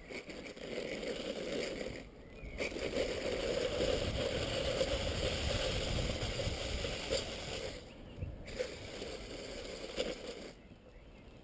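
Inline skate wheels rolling fast on asphalt, a steady rushing hiss with a hum, mixed with wind buffeting the microphone. The rolling drops away briefly about two seconds in and again about eight seconds in, and fades near the end.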